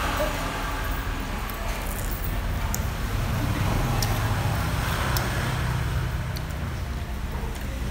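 Steady low background rumble of a small eatery, with a few light clicks of wooden skewers and dishes and faint chatter.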